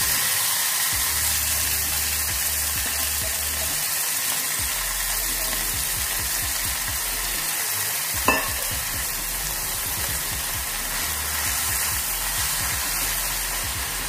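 Mustard flowers and brinjal frying in hot mustard oil in a frying pan: a steady sizzling hiss, with one sharp click about eight seconds in.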